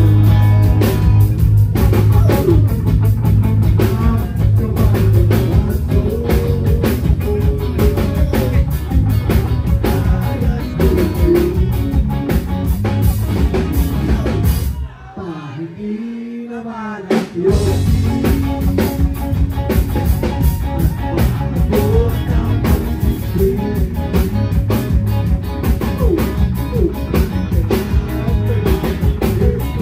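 Rock band playing live: electric guitars and drums with a male singer. About halfway through the band stops for a couple of seconds, leaving the voice alone, then comes back in.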